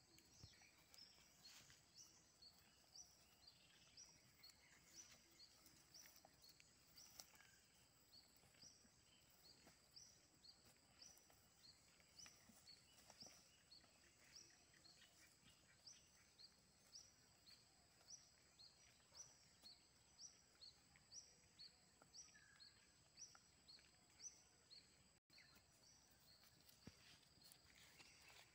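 Near silence: faint rural ambience with short high chirps repeating every half second or so and a thin steady high whine.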